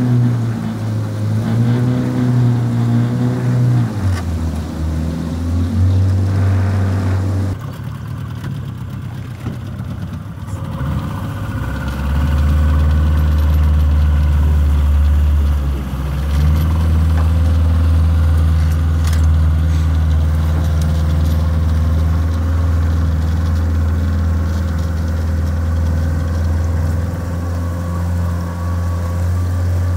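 Boat's outboard motor running steadily, heard from aboard as a low drone. It shifts in pitch a few times in the first half, then holds level.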